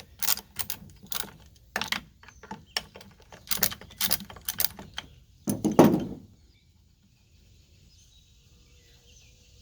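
Metal clicks, clinks and knocks of tools and parts being handled while the clutch cover, bar and rust-stuck chain come off a McCulloch 10-10A chainsaw. There is a quick run of sharp taps, then a louder, longer clatter about six seconds in, and after that it goes nearly quiet.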